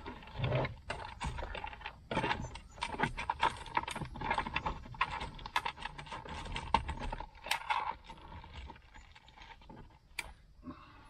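Rapid clicking and rattling of small hard parts being handled, dense for about the first eight seconds and then sparser.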